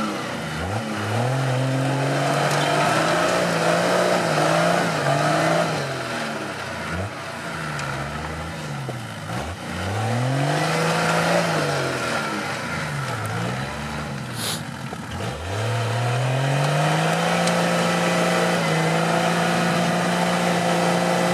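Off-road 4x4's engine revving up and easing off several times, then holding high revs near the end.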